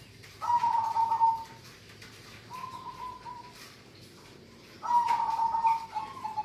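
Local zebra dove (perkutut) singing: three cooing phrases, the middle one softer than the other two.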